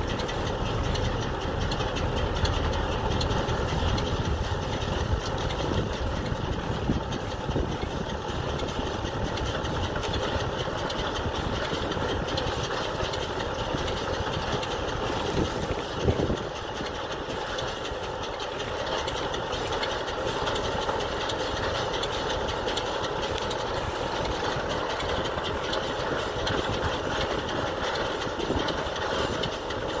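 Tractor engine running under load with a New Holland 644 round baler picking up and rolling hay, a steady mechanical running noise. One brief knock about halfway through.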